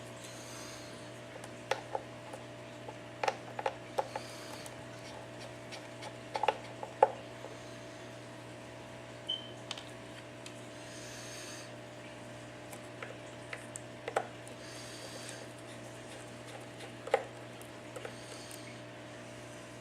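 Scattered small clicks and taps of a precision screwdriver and tiny screws as the screws holding an iPad 4's LCD are taken out. A steady low hum runs underneath.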